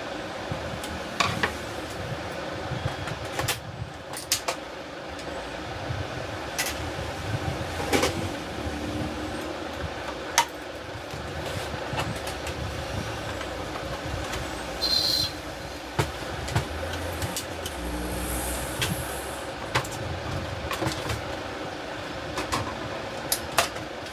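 Irregular sharp clicks and knocks of a screwdriver and plastic covers as an HP LaserJet 1020 Plus printer's casing is taken apart, over a steady background rumble.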